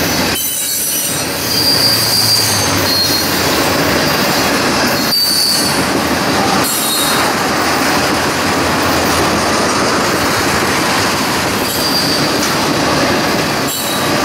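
Freight train rolling past, a steady loud rumble of cars on the rails, with brief high wheel squeals several times.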